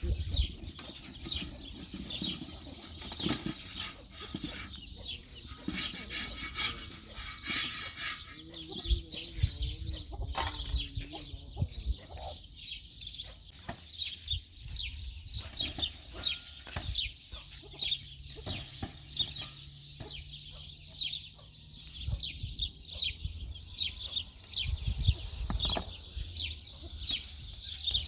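Birds chirping steadily in rapid short high calls, with scattered low knocks and thuds.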